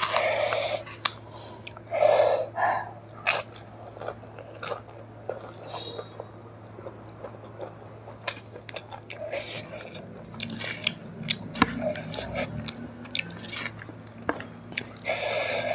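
Close-miked eating sounds of rice with pakoda kadhi: chewing and mouth clicks, with a few louder wet smacking sounds near the start, about two seconds in, and near the end.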